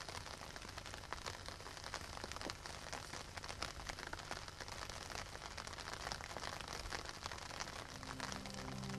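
Faint, steady crackling hiss full of small clicks over a low steady hum. Music comes in about a second before the end.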